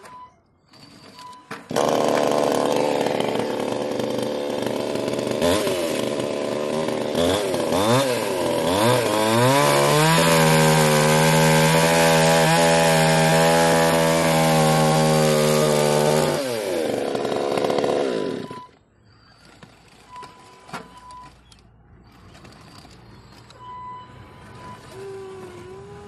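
Hydraulic pump of a remote-control hydraulic excavator model whining under load as the boom and upper body move. It starts about two seconds in, rises and falls in pitch, then holds a steady tone for several seconds before dropping away and stopping. Only a faint hum remains afterwards.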